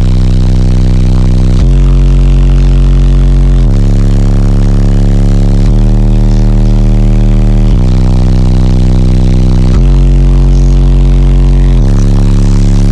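Very loud, bass-heavy music played through a competition car-audio system of eight 12-inch Massive Audio Summo XL subwoofers, heard from inside the vehicle's cabin. The deep bass line changes note about every two seconds in a repeating pattern.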